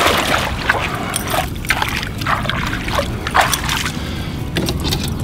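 A musky thrashing in a landing net at the side of a boat, splashing water: one loud splash at the start, then several shorter splashes over the next three seconds before it settles.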